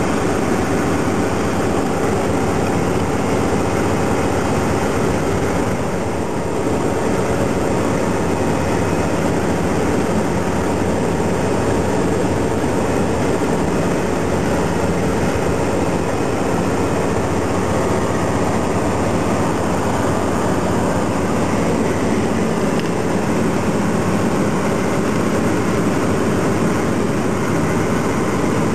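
Tractor-trailer driving at a steady speed: a continuous drone of the diesel engine mixed with road and tyre noise, with no change in pitch or level.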